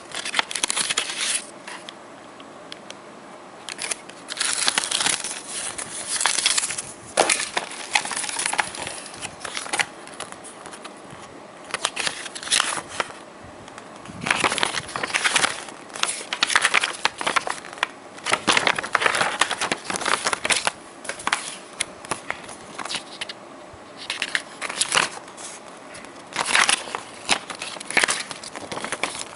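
Paper and cardboard packaging rustling and crinkling in irregular bursts as hands unfold and leaf through printed paper inserts.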